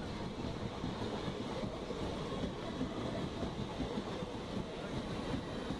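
A passenger train of Indian Railways blue sleeper coaches rolling past close by on the adjacent track: a steady, dense rattle and rumble of wheels on rails.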